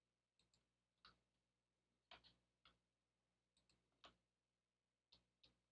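Faint, irregular clicks of a computer mouse and keyboard, about a dozen scattered through, some in quick pairs.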